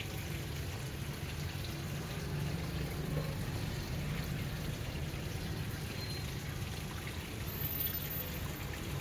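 Water trickling and splashing steadily from a rockery water feature into a fish pond.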